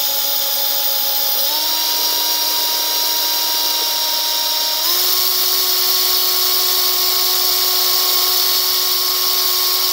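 Small electric drill running as a hole is re-drilled: a steady whine that steps up in speed twice, about a second and a half in and again about five seconds in.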